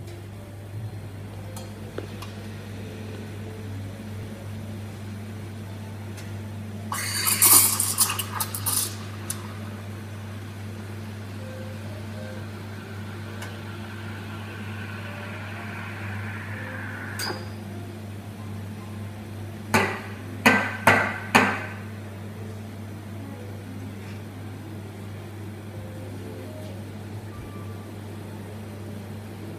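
Nuova Simonelli espresso machine steam wand: a loud blast of steam about a quarter of the way in, then a softer hiss while milk is steamed in a stainless-steel pitcher, its pitch sinking a little before it stops. A little later come four short, sharp knocks close together, over a steady low hum from the machine.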